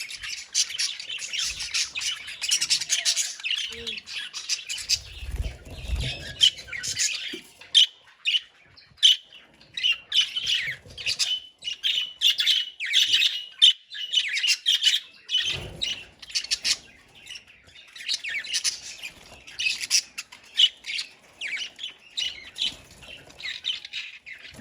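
A colony of budgerigars chattering, a constant mix of rapid chirps, warbles and squawks, with a brief lull about eight seconds in. A few low thumps or rustles sound about five seconds in and again around fifteen seconds.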